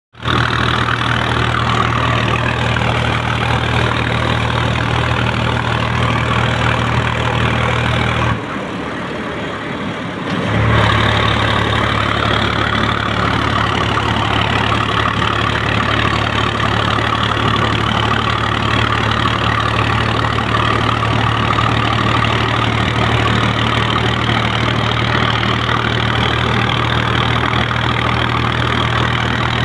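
A vehicle engine idling steadily. About eight seconds in, its low hum drops away for about two seconds, then comes back at the same steady idle.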